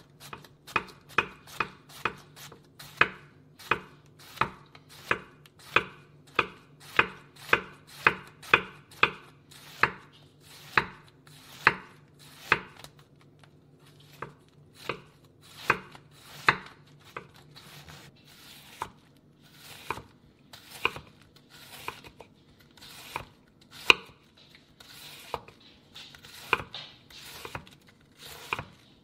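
Knife chopping vegetables: sharp, evenly paced strokes about two a second, a short pause about halfway, then slower, softer strokes.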